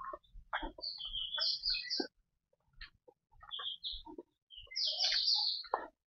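Birds calling: a scatter of short, high chirps and notes, the loudest run about five seconds in, over faint footsteps on a dirt path strewn with dry leaves.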